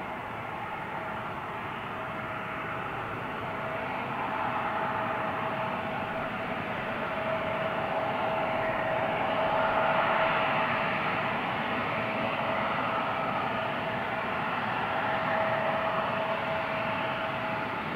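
Bombardier CRJ700's two rear-mounted GE CF34 turbofan engines running at taxi power: a steady whine over a hiss, swelling a little louder about ten seconds in.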